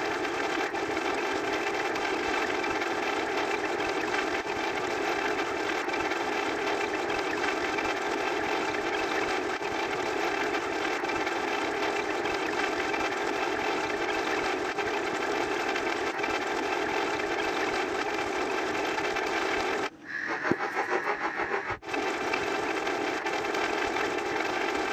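A counting sound effect, repeated so fast that it merges into a steady, dense noisy din. About 20 s in it drops out briefly and gives way to a couple of seconds of rapid pulsing before the din returns.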